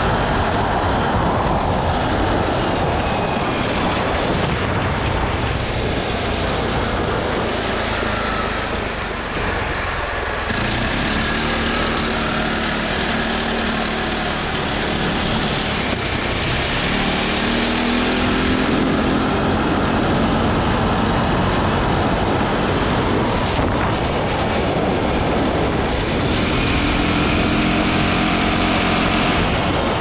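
Arctic Cat ATV engine running as the quad rides along a gravel trail, under a steady rush of wind and tyre noise. The engine's pitched note comes up more strongly several times as the rider accelerates.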